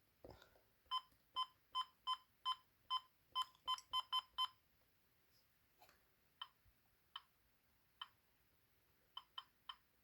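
Key-press beeps from a First Alert WX167 weather radio as its buttons are pressed during setup: a quick run of about a dozen short beeps of the same pitch, then single beeps every second or so, with a final quick triple near the end.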